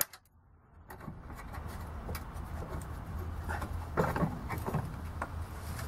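Faint metal clinks and rattles as a latch pin is pulled to release a fold-down storage bin under a motor home's body, over a steady low hum. The handling sounds come a few seconds in.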